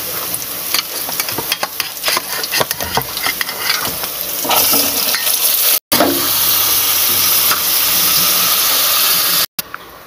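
Blanched pork bones sizzling in hot oil and browned shallots in a metal stockpot, with clicks and knocks of the bones being moved and stirred over the first few seconds. The sizzle then runs on as a steady hiss, cut off twice by brief dropouts, and is quieter near the end.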